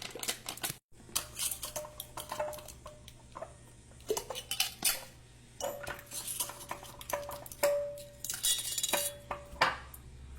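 Kitchenware handled on a counter: an irregular run of clinks, clicks and knocks of utensils, dishes and a pot, with a few brief ringing notes.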